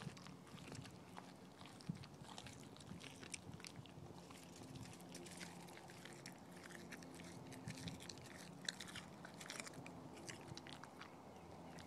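Dog chewing a chunk of raw green tripe: faint, irregular wet clicks and crunches of its teeth working the tripe, thickest in the middle and dying away about a second before the end.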